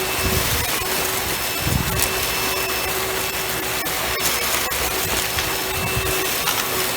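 Kenmore Elegance upright vacuum running in floor mode, brush bar off: a steady rushing of suction with a constant motor whine, and a few low bumps as it is pushed over leaves.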